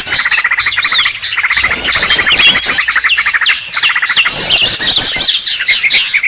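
Green leafbirds (cucak ijo) calling busily: fast repeated chattering notes, overlapping looping high phrases and short slurred whistles. It is a noisy, agitated chorus of the kind used as a lure sound to draw wild leafbirds in.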